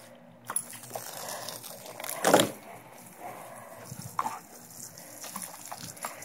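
Garden hose spray hissing and splashing onto the grass and a German Shepherd, who jumps and snaps at the stream. A few short splashes and knocks come through, with one loud brief burst a little over two seconds in.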